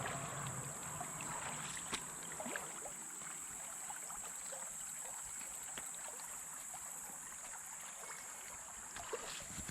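Creek water flowing and sloshing, with scattered small splashes and clicks.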